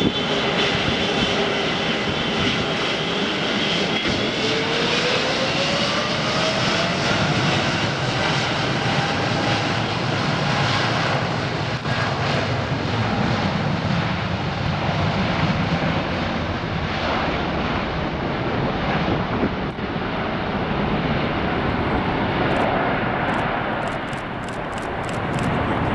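Boeing 777F freighter's GE90 jet engines running loud and steady. A whine rises in pitch about four seconds in, then holds.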